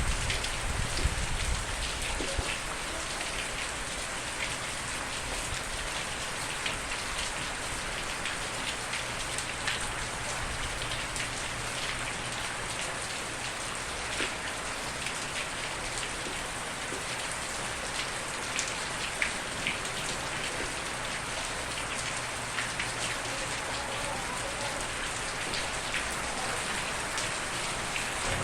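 Steady rain falling on a surface, an even hiss with scattered louder drop ticks and no thunder. A low rumble fades out over the first couple of seconds.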